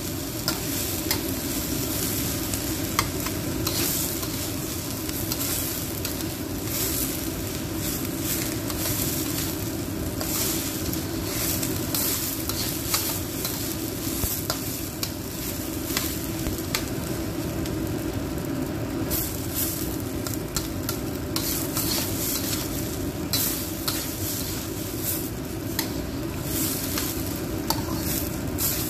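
Soaked raw rice stir-frying in oil in a wok with smashed ginger, garlic and lemongrass: steady sizzling, with frequent scrapes and clicks of a metal spatula against the pan as the rice is toasted before being cooked in stock.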